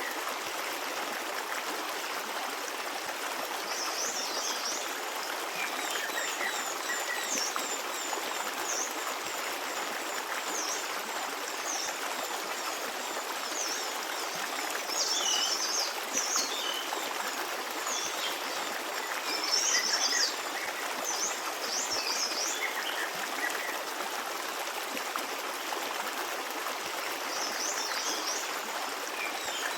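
A stream running over rocks in a steady babble, with small birds chirping in short high bursts now and then, loudest about two-thirds of the way through.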